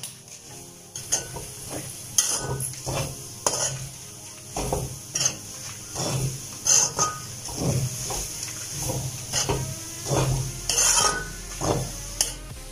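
A metal spoon stirring and scraping grated coconut with dried chillies and spices around an aluminium kadai as they dry-roast, with irregular scrapes and clinks against the pan and a light sizzle.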